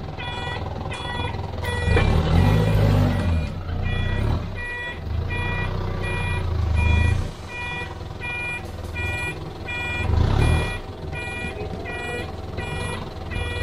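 Flatbed tow truck reversing, its reverse alarm beeping steadily about one and a half times a second over the truck's engine, which revs up loudly three times as it manoeuvres.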